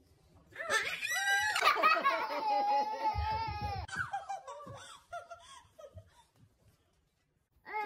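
A young child laughing and squealing, with a loud, high, drawn-out cry lasting about three seconds, then a few shorter, fainter giggles that die away.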